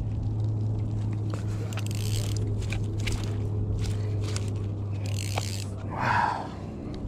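Scraping and rustling of a fishing landing net and rod being handled, with small clicks, over a steady low hum that stops about six seconds in. A brief louder rustle comes just after the hum stops.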